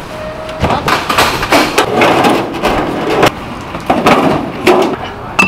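Knocks and clatter of street-stall gear being handled and set down, a plastic crate and a heavy black griddle pan, with a few sharp knocks spread through.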